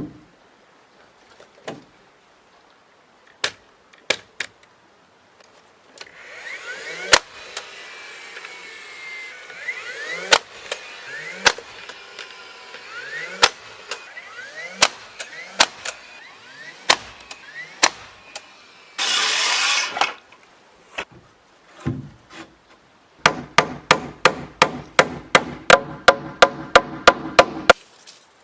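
Hammer blows on 2x6 lumber as the boards are nailed together into one beam: scattered single knocks, then near the end a fast even run of about four ringing strikes a second driving a nail home. About two-thirds of the way through there is a loud rough noise lasting about a second.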